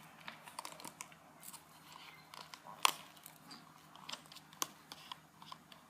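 Homemade glue-and-shaving-foam slime being worked, giving irregular sticky clicks and crackles, with one sharper snap about three seconds in.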